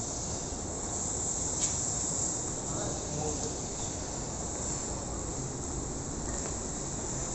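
Steady high-pitched hiss over a low rumble, with one faint click about one and a half seconds in.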